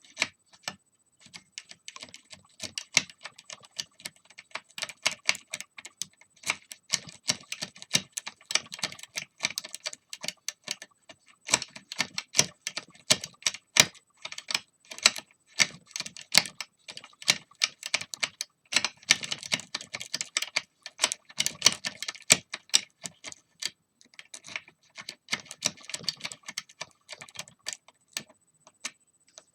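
Lock pick and tension wrench working a pin-tumbler house lock cylinder by single pin picking: dense, irregular small metallic clicks and scrapes in bunched runs as the pins are lifted and set.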